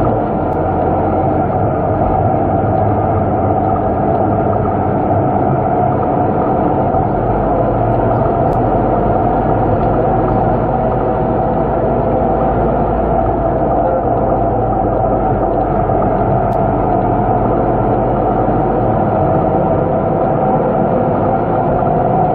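Interior ride noise of a Scania K230UB city bus under way: its five-cylinder diesel and driveline drone steadily, with a prominent steady whine running through it.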